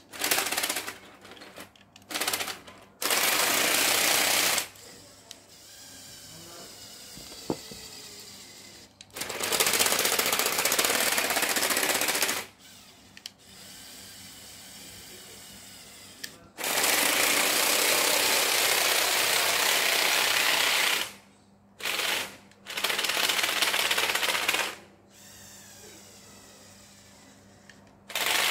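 Lego Technic tracked vehicle's electric drive motors and plastic tracks running with a loud rattling whirr in bursts of a few seconds, starting and stopping several times with quieter lulls between.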